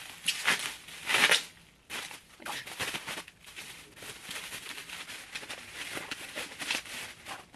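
Plastic bubble wrap crinkling and rustling as a book is worked out of it, with louder crackles near the start and about a second in, then lighter steady rustling.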